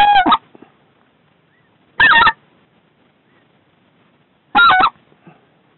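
Specklebelly (white-fronted goose) call blown loud and close in short bursts of quick notes that bend in pitch. A run of notes ends just after the start, another burst comes about two seconds in, and a third comes near the end.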